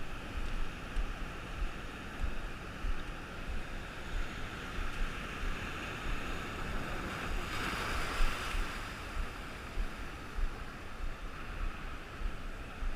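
Heavy ocean surf washing in steadily, with one bigger wave surging a little past halfway. Wind rumbles on the microphone throughout.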